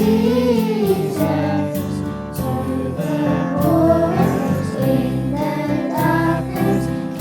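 Christmas worship song: voices singing a melody over an instrumental backing track with a steady beat.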